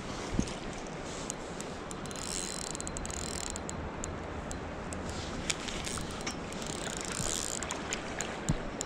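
Spinning reel clicking and whirring as a hooked steelhead is played on the line, with a few sharp clicks standing out, over a steady rush of creek water.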